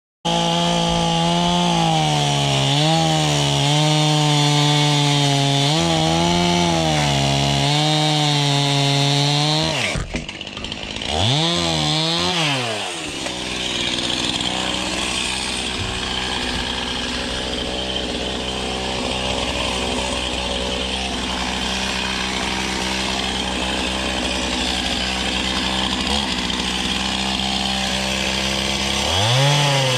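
Two-stroke chainsaw running at high revs, its pitch wavering, easing off and revving back up about ten seconds in, then holding a steadier, lower pitch with rougher noise as it cuts through the tops of wooden log rack posts, revving up again near the end.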